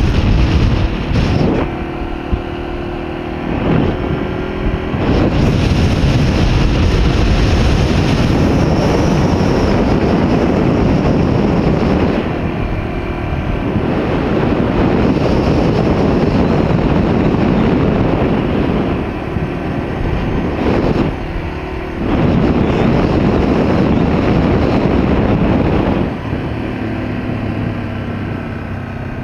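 Wind rushing hard over the microphone of a camera on a moving vehicle, easing off several times. In those lulls a steady low engine hum comes through.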